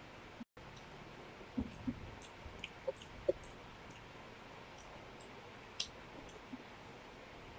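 Quiet eating sounds: a handful of soft mouth clicks and small taps of a fork on a plate over low room noise, with the audio cutting out for a moment about half a second in.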